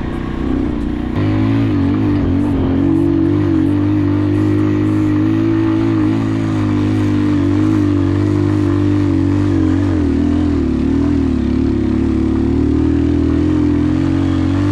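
Motorcycle engine running steadily under load, louder from about a second in, its pitch dipping and recovering slightly about two seconds in and again near ten seconds.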